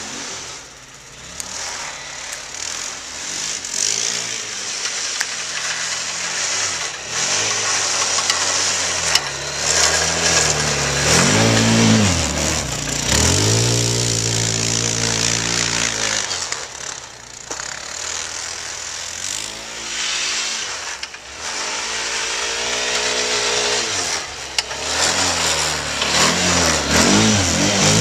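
Apache 4x4 quad bike engine revving up and falling back again and again as it is driven through deep snow, with a steady hiss underneath.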